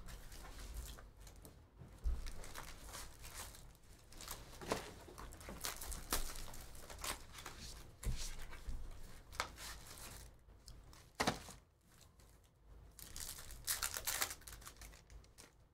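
Plastic and foil wrappers of Bowman's Best baseball card packs being torn open and crinkled by hand, in irregular crackles and rips.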